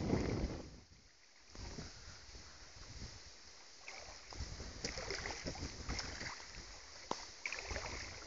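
A gust of wind buffets the microphone at the start, then faint water lapping with small scattered splashes and ticks, a little busier in the second half.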